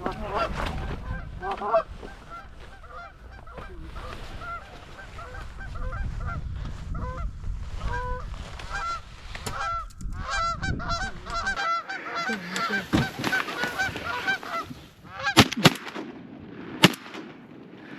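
Flock of Canada geese honking repeatedly as they come in, with wind rumble on the microphone for the first two thirds. Near the end, three shotgun shots, two in quick succession and a third about a second later.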